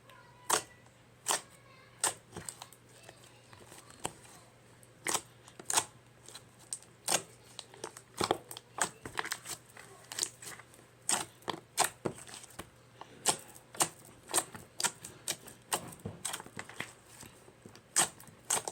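Slime being squeezed and worked in the hands, giving a string of irregular sharp clicks and pops, sometimes one at a time, sometimes several close together.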